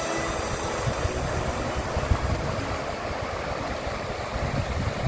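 Wind buffeting the camera microphone: an irregular low rumble under a steady rushing hiss.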